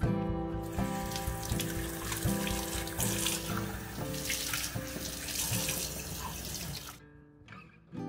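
Kitchen tap running into a sink, the stream splashing over a coffee filter held under it to rinse it; the water stops about seven seconds in. Acoustic guitar music plays underneath.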